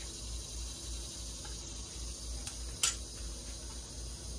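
Quiet kitchen room tone with a steady low hum, broken by a single short click or tap about three seconds in.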